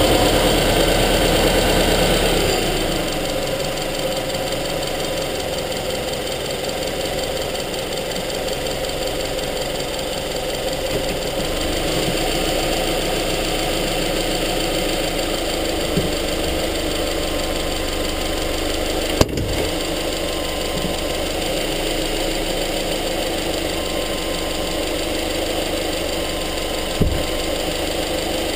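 Subaru Forester XT's turbocharged boxer four-cylinder engine heard from inside the engine bay, running a little higher for the first couple of seconds and then settling to a steady idle. Three short sharp clicks stand out later on.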